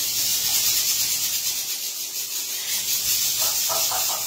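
Amazon parrot making a steady breathy hiss. About three and a half seconds in, it breaks into a quick run of rapid pulsed chattering notes.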